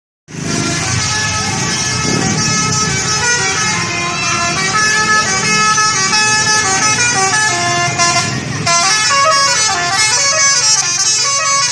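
A bus's telolet horn, a set of electric horns playing a tune in quick stepped notes, loud and continuous. About eight and a half seconds in, a new phrase starts abruptly.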